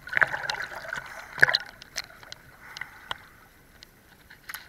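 River water splashing and lapping around a camera held at the surface by a swimmer, with a few sharp splashes in the first two seconds, then quieter.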